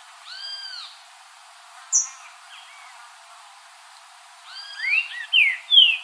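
Green-winged saltator (trinca-ferro) singing: one rising-and-falling whistled note near the start, then from about four and a half seconds a quicker phrase of whistles that sweep up and down, loudest at the end. A short, sharp, high chip about two seconds in.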